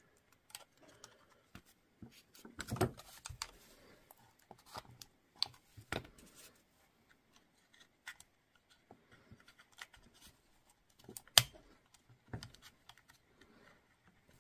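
Scattered light clicks and taps of a power-tool battery's plastic housing and circuit board being handled and fitted together, with one sharper click about eleven seconds in.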